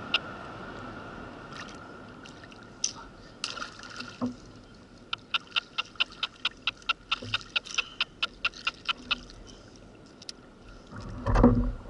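Spinning reel clicking in an even run of about five clicks a second for several seconds midway, as a hooked fish is fought in to the kayak, with a few scattered clicks before. Water laps and splashes against the kayak.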